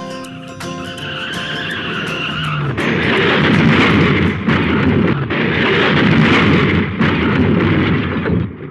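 Dubbed-in cartoonish sound effect of car tyres screeching into a long skid: a squeal for a couple of seconds, then a harsh scraping skid noise with a few short breaks. Acoustic guitar music fades out under it at the start.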